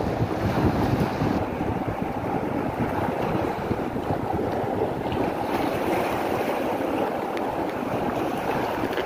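Steady rushing of sea surf on the shore mixed with wind buffeting the microphone.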